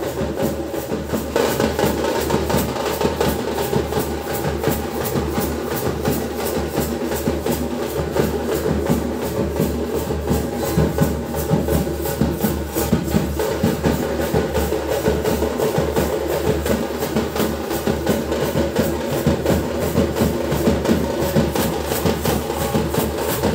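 A group of large hand-held drums with white heads beating a fast, steady rhythm together, the loud marching beat of a street procession band.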